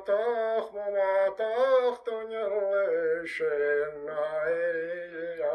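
A man singing a traditional Gaelic song solo and unaccompanied, with long held, slightly wavering notes in phrases broken by short breaths.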